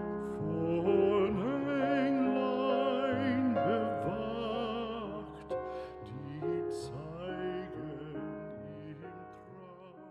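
Music with a singing voice holding long wavering notes over sustained chords, fading out toward the end.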